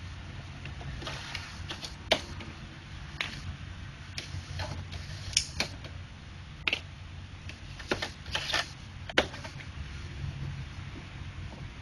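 Plastic ink cartridges being handled and pushed into a Brother MFC-J615W inkjet printer's cartridge bay: irregular sharp clicks and knocks, about nine in all, over a steady low hum.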